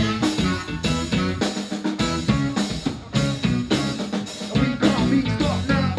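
Live band music with a drum kit keeping a steady beat of snare and bass drum hits over a bass line.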